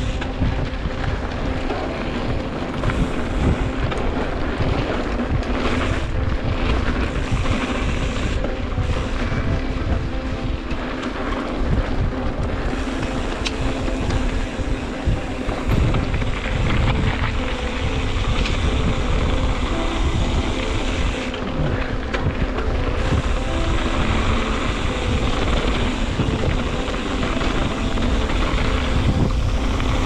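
Wind rushing over the microphone with tyre and trail rumble from a mountain bike riding downhill at speed, full of small bumps and rattles.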